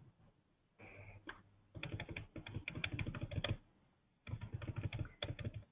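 Typing on a computer keyboard over an open microphone: two quick runs of key clicks, the first about two seconds in and the second about four and a half seconds in, after a brief faint hum about a second in.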